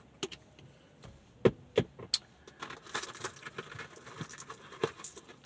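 Handling noise while eating from a takeout box: a few sharp clicks and taps, with a stretch of light crinkling and crackling in the middle.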